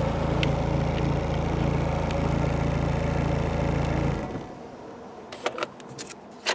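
Renault Mégane II engine idling steadily, heard from inside the cabin, then switched off with the Start button about four seconds in: it cuts off abruptly. A few light clicks and knocks follow.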